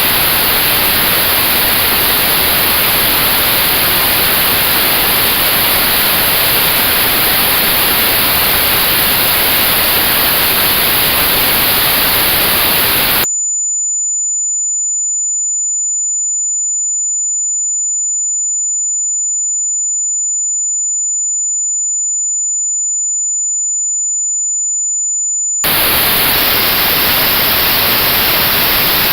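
Tinnitus-test audio: white noise with a high band notched out, cutting abruptly about 13 seconds in to a single steady high-pitched pure tone set inside that notch, then cutting back to notched white noise about 26 seconds in.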